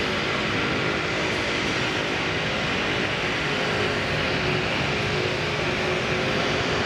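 Boeing 787-9's twin Rolls-Royce Trent 1000 turbofans at takeoff thrust during the takeoff roll: a steady jet roar with a faint whine.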